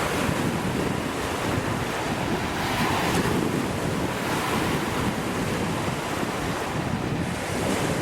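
Steady rushing wind, buffeting the microphone with a low rumble.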